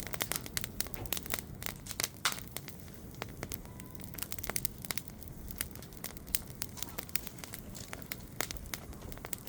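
Wood bonfire crackling, with many irregular sharp snaps and pops.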